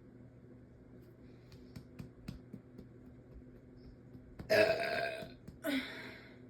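A girl belching twice about four and a half seconds in: a long, loud burp, then a shorter one right after, with a few faint mouth clicks before them.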